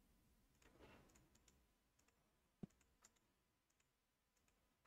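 Near silence with a single computer mouse click about two and a half seconds in and a few fainter ticks.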